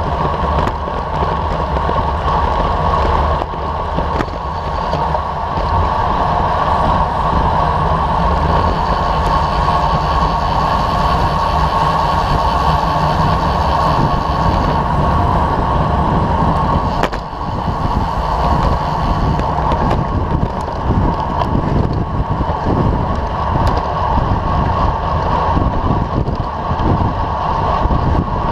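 Steady wind rush and road rumble on a camera mounted on a road bike rolling at speed over asphalt in a group of riders. There is a brief knock past the middle.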